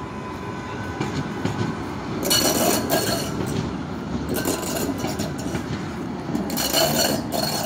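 Tram passing over a level crossing: a steady rumble of wheels on rail, with three short bursts of high hissing noise about two, four and a half, and six and a half seconds in, the last the loudest.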